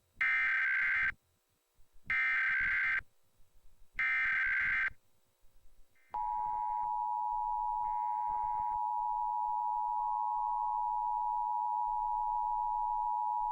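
Emergency Alert System test broadcast: three SAME header data bursts, each a raspy warbling buzz about a second long, then the EAS two-tone attention signal (853 and 960 Hz) starting about six seconds in and holding steady. Two shorter buzzing bursts sound over its first few seconds.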